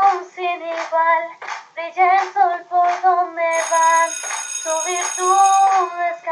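A song playing: voices singing held notes over music. A high, bright ringing sound joins about halfway through and stops shortly before the end.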